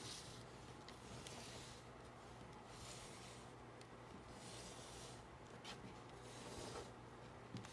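Faint scraping of a plastic LEGO baseplate being slid and turned by hand on a wooden tabletop, coming in several strokes with a few light clicks between them.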